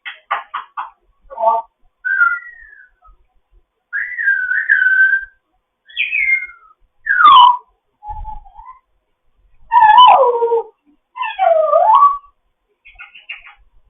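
African grey parrot whistling and chattering: a quick run of clicky notes, then several separate whistles gliding up and down, a loud falling whistle about seven seconds in, and warbling calls near the end.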